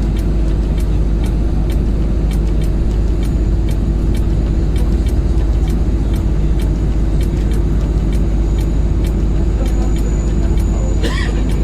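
Steady, heavy engine rumble with many short clicks through it and a brief louder rush about eleven seconds in.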